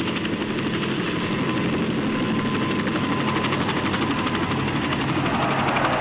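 Helicopter hovering: a steady engine drone with rapid rotor chop. It is a sound effect played from a 1972 stereo demonstration vinyl record.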